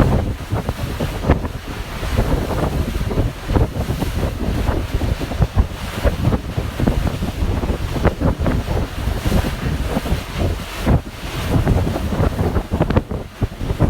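Wind gusting across the microphone on a moving passenger ferry, over a steady low rush of water and boat noise.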